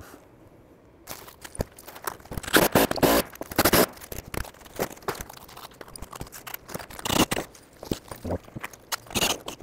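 Irregular scraping, rustling and knocks of hands-on work on an asphalt-shingle roof deck: footsteps and roof-mount parts being handled. Almost quiet for the first second; the loudest scrapes come about three to four seconds in.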